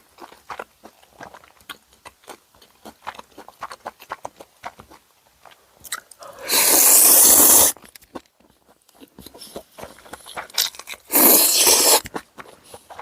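Close-miked eating: steady chewing with small crunchy bites, broken by two loud slurps of tonkotsu ramen noodles, each about a second long, about six and a half and eleven seconds in.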